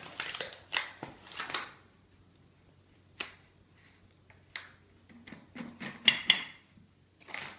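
A metal teaspoon scooping ground coffee and tipping it into a Chemex paper filter: short scrapes and paper rustles, with a few sharp clicks of the spoon, the loudest two about six seconds in.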